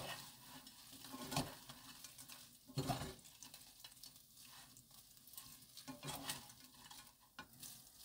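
Crisp fried dried chili peppers (gochu-bugak) rattling and scraping in a nonstick frying pan as they are tossed with wooden spatulas, with a few irregular clatters. The dry rattle is the sign that the coated peppers have fried crisp.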